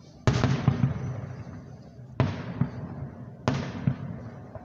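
Aerial firework shells bursting: three sharp bangs, one just after the start, one about two seconds in and one about three and a half seconds in, each trailing off in a fading echo.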